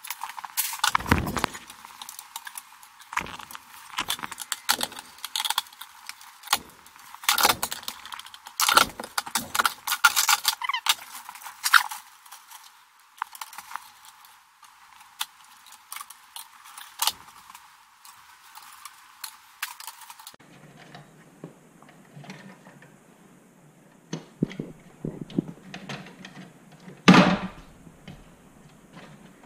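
Hands working electrical cable and a hand tool inside a steel breaker panel: irregular metallic clicks, rattles and clinks. There is a louder knock about a second in and another near the end.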